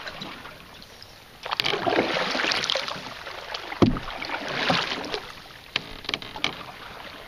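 Canoe paddle strokes pulling through shallow creek water, two strokes of rushing water noise, with a single sharp knock just before four seconds in.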